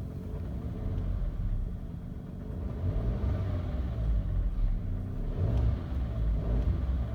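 Car engine running with its speed rising and falling a few times, and a knock that persists after the drive belt was re-fitted.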